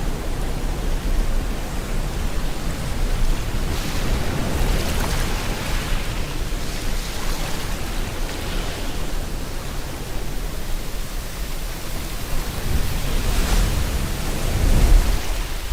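Steady rain mixed with ocean waves washing onto a shore, swelling and easing, with a larger wave surging in near the end.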